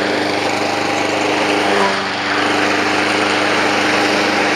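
Small lawn mower engine running steadily at a constant speed.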